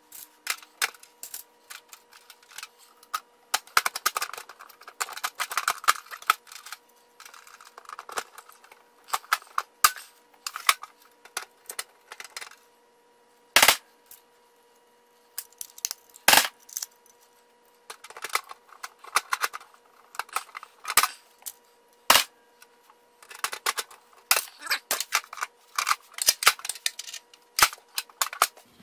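Hand pop-rivet tool setting rivets through a steel toolbox's handle brackets, giving a run of irregular clicks and metallic knocks with three loud sharp cracks, about 14, 16 and 22 seconds in.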